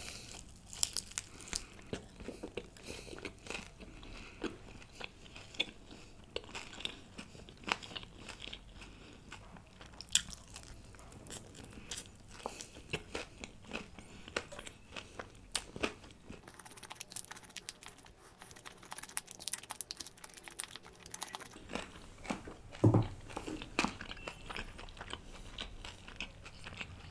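Close-miked biting and chewing of deep-fried dry chicken lollipop, with many short crunchy clicks and wet mouth sounds, and one brief louder low sound near the end.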